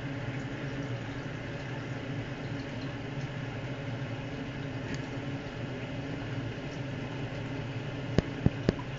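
A steady low mechanical hum, with three sharp clicks near the end.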